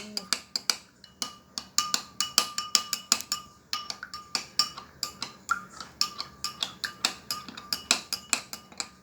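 A spoon stirring a glass of freshly squeezed orange juice, clinking against the side of the glass again and again, several times a second, each clink ringing briefly; the clinking stops suddenly near the end.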